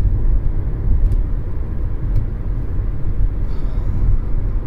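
Steady low road and engine rumble inside the cabin of a 2007 BMW X3 3.0si, its inline-six driving along normally on a road test.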